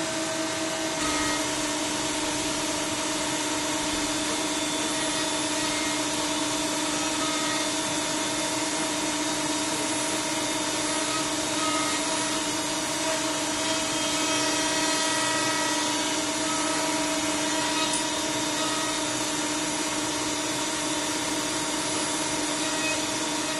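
Factory machinery running steadily: a constant hum and hiss with several steady whining tones, the lowest of which steps slightly down in pitch about a second in.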